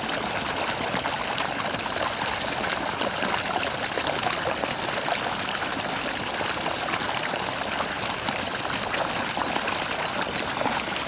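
Steady running water, an even splashing trickle with no break.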